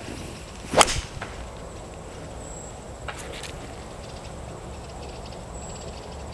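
Golf tee shot with a four iron: a single sharp swish-and-crack as the club sweeps through and strikes the ball, about a second in. A fainter pair of clicks follows about three seconds in.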